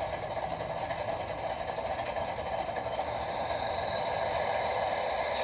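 G scale model train rolling along outdoor track: a steady rumble and clatter of wheels on the rails with a thin high whine, growing a little louder near the end as the caboose comes close.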